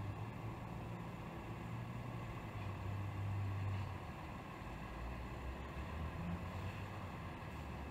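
Box truck's engine running at low speed as the truck pulls slowly forward, a steady low drone that swells briefly about three seconds in. Heard through a closed window, so it is muffled.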